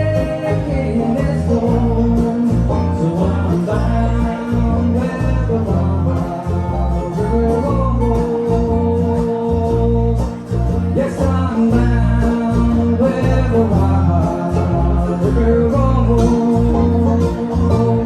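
Bluegrass band playing live: plucked acoustic strings with singing.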